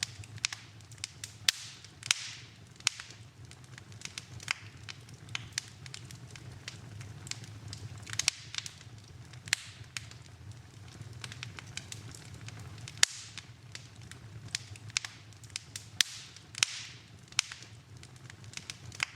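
Wood fire burning in a fireplace: irregular sharp crackles and pops over a low steady rumble of the flames.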